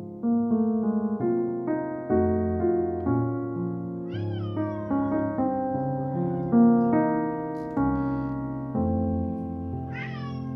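A pet cat meowing twice to be fed, about four seconds in and again near the end, each meow falling in pitch as it ends. Piano music plays throughout.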